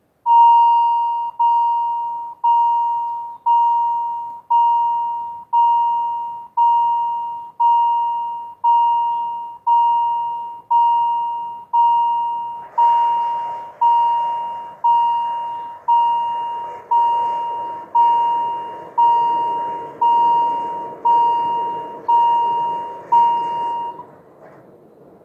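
Swiss level crossing warning bell striking about once a second, each stroke a ringing tone that fades before the next. About halfway through a steady noise joins in while the two barriers lower, and the bell stops near the end once the barriers are down.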